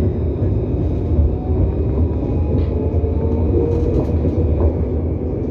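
Tram running along its track: a steady low rumble of wheels and body, with a faint whine sliding in pitch in the middle.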